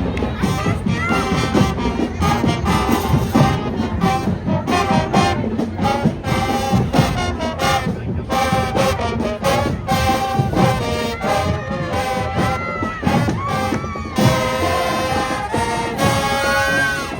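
High school marching band playing: brass (trumpets and trombones) over a steady pounding drumline.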